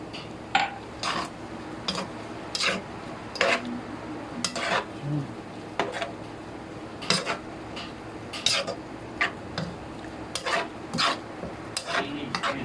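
A cooking utensil stirring chicken liver and gizzard adobo in a frying pan: repeated short scrapes and clinks against the pan at an uneven pace, over a faint steady hum.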